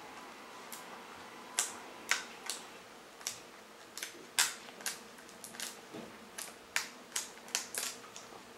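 Irregular sharp clicks and ticks of fingernails picking at a plastic CD case, working at its security sticker.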